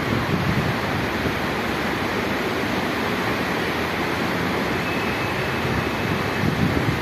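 Steady rushing noise of rain and wind over an open stadium, with wind buffeting the microphone in low gusts.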